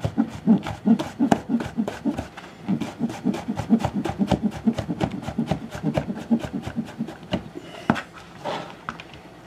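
Chef's knife slicing dryad's saddle (pheasant back) mushroom on a plastic cutting board: quick, even chopping knocks, about three or four a second. Near the end the chopping stops and there is a brief scrape as the slices are gathered up against the blade.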